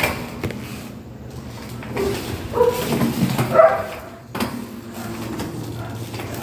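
A dog giving a few short, pitched calls about two and a half to four seconds in.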